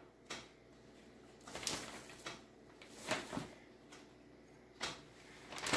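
Zip-top plastic bag rustling in a few short, separate crinkles as it is held open and seasoned flour is tipped into it from a glass bowl.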